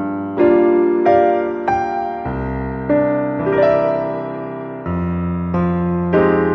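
Background music: a soft electric piano playing slow, sustained chords, a new note or chord struck about every second.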